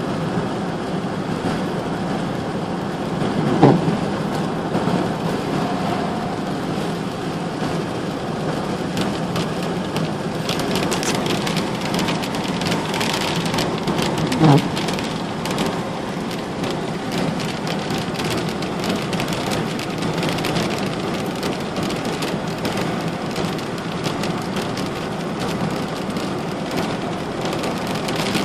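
Steady heavy rain falling and splashing on a hard surface, growing denser with close drop impacts from about ten seconds in. Two short louder sounds break through, about four seconds in and near the middle.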